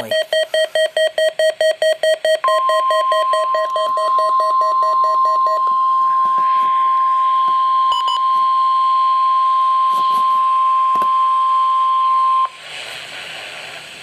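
Weather radio receiver beeping in rapid pulses, about four or five a second. Then, about two seconds in, the National Weather Service's steady 1050 Hz warning alarm tone of the weekly test comes through the radio's speaker. It holds for about ten seconds, with a few button clicks, and cuts off suddenly into a low hiss near the end.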